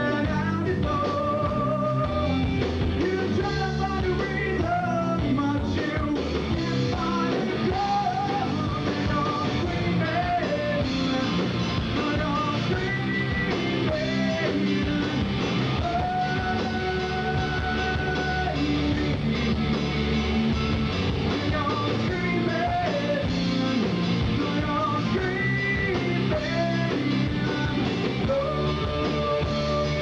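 Live rock band playing: electric guitars and a drum kit, with a singer holding long sung notes over them.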